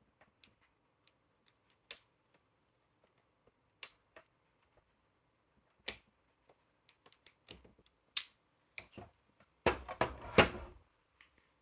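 Sharp clicks of wire strippers and wire handling, a couple of seconds apart, then a short run of louder clatter near the end.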